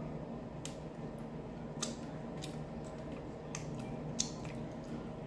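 Close-miked mouth sounds of eating loaded nachos: sharp, crisp clicks and smacks from chewing and licking fingers, about eight of them spread through, over a steady low hum.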